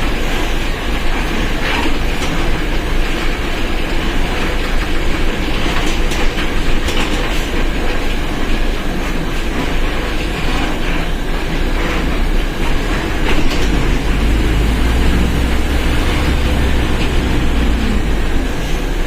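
Mercedes-Benz OF1721 BlueTec 5 bus on the move, its four-cylinder diesel and driveline running steadily under a continuous rattle and road noise, with scattered knocks. The low rumble grows louder about two-thirds of the way through.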